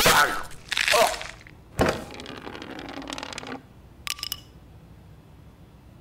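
Sound effects of a few heavy thuds and a crash with a breaking, crunching quality in the first two seconds, the last hit dying away over about two seconds. A few short ringing clicks follow about four seconds in.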